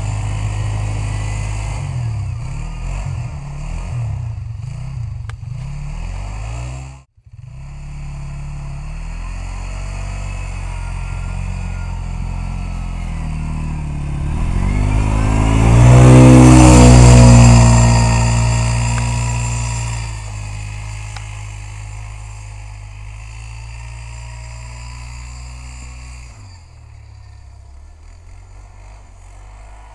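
Bombardier Rally 200 ATV's single-cylinder engine running as the quad rides through snow. It cuts out briefly about a quarter of the way in, then grows loud and passes close about halfway through, and fades as the ATV draws off into the distance near the end.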